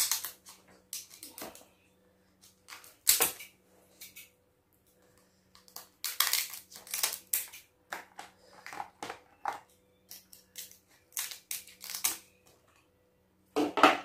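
Kitchen scissors snipping through cooked crab shell, with the shell cracking in irregular sharp crunches that come in short bunches.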